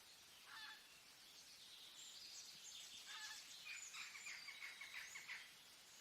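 Faint bird calls over a quiet, steady hiss: one short call about half a second in, then a quick run of repeated calls from about two seconds in until past five seconds.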